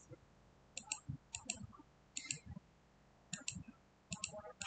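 Computer mouse clicking about six times, each click a quick double tick of press and release, as a colour is picked on screen.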